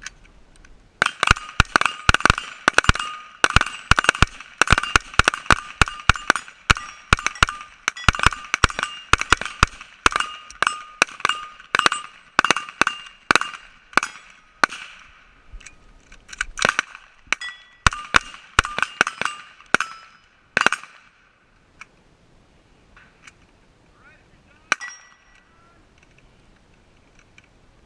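Rapid rifle fire: dozens of sharp shots over about twenty seconds, irregular and often several a second, many followed by a metallic ring. It stops, then one more shot comes a few seconds later.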